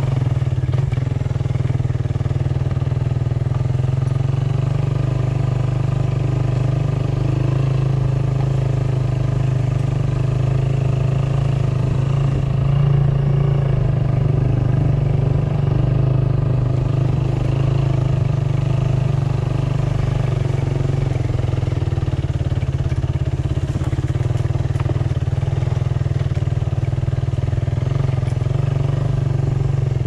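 A vehicle engine running steadily at an even speed, a constant low drone.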